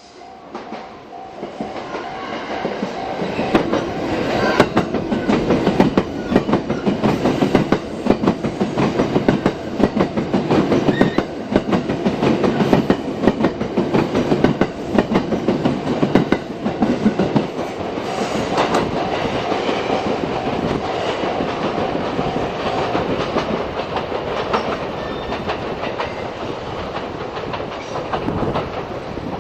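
Twilight Express Mizukaze train passing close by, growing loud over the first few seconds, its wheels clattering rhythmically over the rail joints and the points. A level-crossing warning bell dings steadily at the start and again for a few seconds past the middle.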